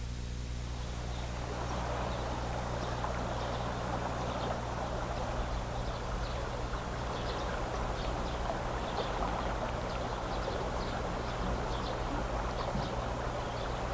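A steady rushing noise with faint crackles, fading in about a second in and cutting off suddenly near the end, over a low steady hum.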